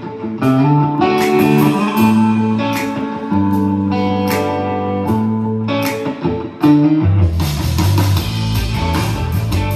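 Guitar music playing at full volume through a Pioneer PBM5 portable party speaker. About seven seconds in it gets fuller and louder, with deeper bass and a steady high hiss.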